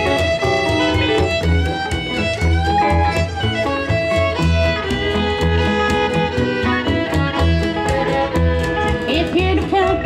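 Hillbilly-style country band playing live: the fiddle takes the lead break over electric archtop guitar, with upright bass thumping the beat.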